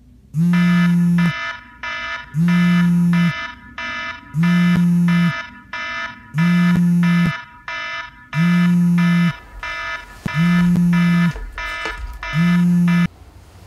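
Alarm clock going off with a low, harsh buzz in a repeating pattern: a long buzz followed by a shorter, quieter one, about every two seconds, seven times over, then cut off suddenly near the end.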